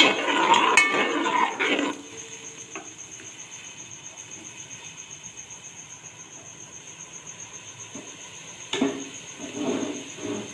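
Steel ladle stirring and scraping a yogurt-and-masala mixture frying in oil in a steel pot, with metal-on-metal clinks for the first two seconds. After that a faint sizzle and a thin steady high tone are all that is left, until a sudden knock and a short burst of noise about nine seconds in.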